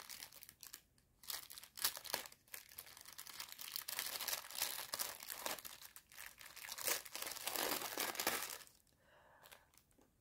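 Plastic poly mailer bag crinkling and rustling in irregular crackles as it is handled and cut open along one edge with scissors. It goes quiet briefly about nine seconds in.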